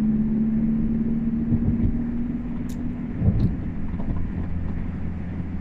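Car engine and road rumble heard from inside the cabin. A steady hum runs over it and stops about three seconds in, and there are a couple of low thumps and faint clicks.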